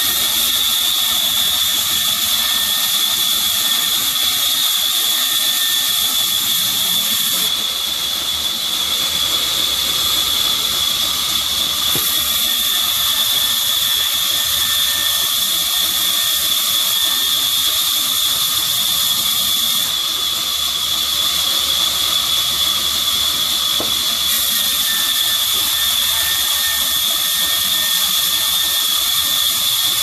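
Sawmill band saw ripping a mahogany log into planks: a steady high-pitched blade whine over the hiss of the cut. The hiss eases twice, about a third of the way in and again two-thirds through, then comes back as the wood is fed on.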